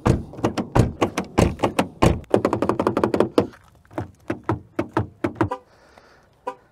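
Door handle of a Mercedes-Benz CLE coupé being yanked over and over: a fast run of thunks and clicks for about five seconds, then a few quieter single clicks.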